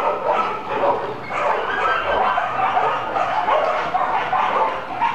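Many dogs barking and yipping at once, a steady din of overlapping barks with no break.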